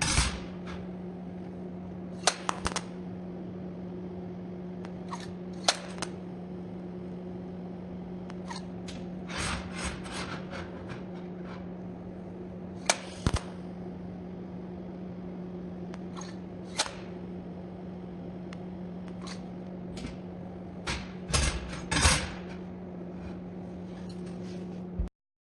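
Scattered clinks, taps and short scrapes of 6 mm iron round bar being handled, with small clusters of clatter about ten seconds in and again about twenty-one seconds in. A steady low electrical hum runs underneath and cuts off abruptly near the end.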